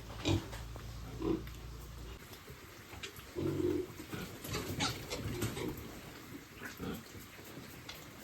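Piglets grunting and calling in short, irregular bursts.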